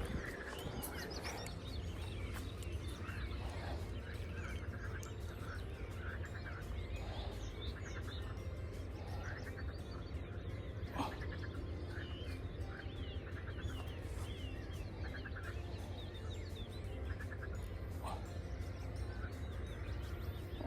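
Small birds singing and calling throughout, with short chattering phrases repeated again and again and quick whistled notes. A steady low rumble runs underneath, and a single sharp click comes about eleven seconds in.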